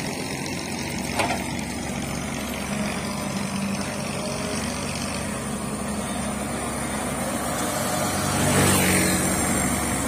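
Hyundai tracked excavator's diesel engine running steadily as it digs, with a short knock about a second in and a louder surge near the end.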